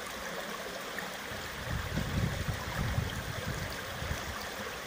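Shallow river water rushing out of a row of concrete culvert pipes and over the stony bed, a steady flowing sound, with some low rumbles about two seconds in.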